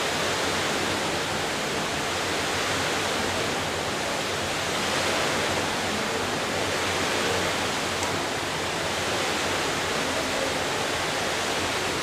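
Steady rushing hiss of an indoor diving-pool hall, even and unbroken, with no voices or distinct events.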